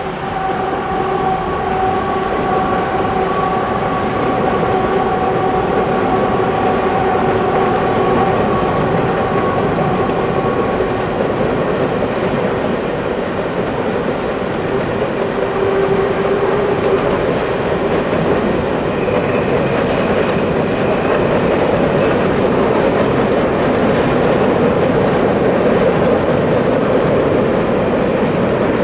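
Canadian Pacific coal train rolling by: a steady, loud rumble of locomotives and wheels on rail that grows slowly louder, with a held high whine for about the first ten seconds.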